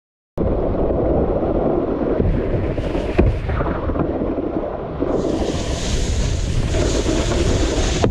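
Strong wind buffeting an action camera's microphone while a wakeboarder is towed across the water, starting abruptly. There is a sharp knock about three seconds in, and a loud hiss of rushing water and spray joins for the last three seconds.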